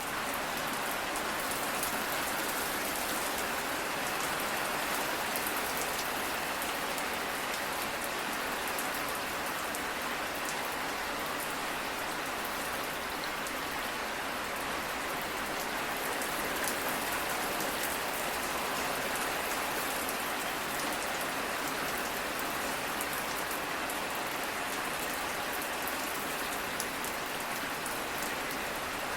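Steady rainfall pattering on a surface, an even hiss with fine scattered drop ticks, fading in at the start and then holding constant.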